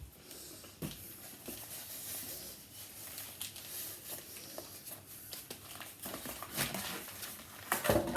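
Packaging crinkling and rustling as it is handled, with scattered light clicks and a louder knock near the end.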